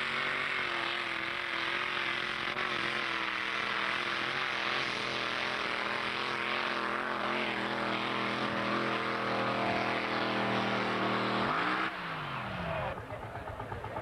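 A pulling tractor's engine at full throttle through a pull, holding high, steady revs with a loud exhaust for about twelve seconds. Near the end it winds down sharply as the throttle is let off.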